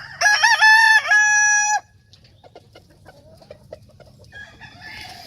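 A gamefowl rooster crowing once: a loud call of about a second and a half that steps through several short notes and ends on a long held note. Softer clucking and light pecking sounds follow.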